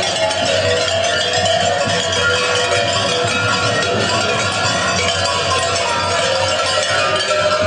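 Many large metal bells worn by fur-costumed kukeri dancers clanging together in a dense, unbroken jangle as the dancers jump and sway.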